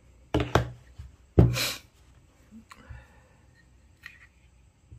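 Handling noise from a vape box mod and its 18650 battery: two quick sharp knocks, then a louder short scuffing noise, with a few faint small clicks later.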